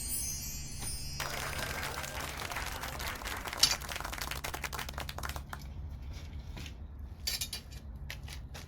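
Wood fire in a secondary-combustion wood-gas stove crackling hard, dense rapid snapping with one loud pop a few seconds in, then thinning to scattered separate pops, over a steady low rumble of the burn.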